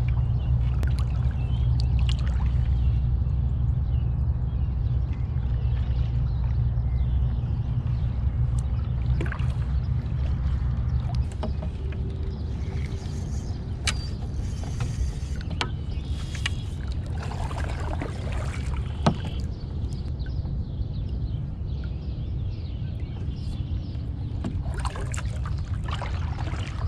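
Kayak being paddled on calm water: paddle blades dipping and water dripping off them, over a steady low rumble. Partway through, the paddling gives way to quieter water sounds and a few sharp clicks.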